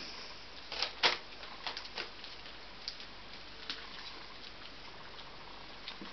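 Puppies shifting in a dog bed and stepping onto newspaper: scattered rustles and small clicks of paws and claws, the loudest a pair about a second in.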